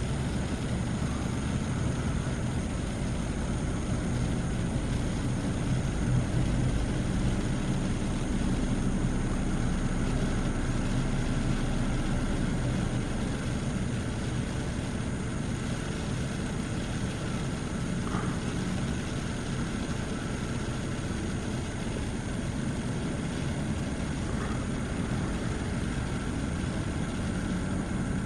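Steady hiss of heavy rain with a low engine drone from a light propeller aircraft arriving. The sound holds even, with no sudden events.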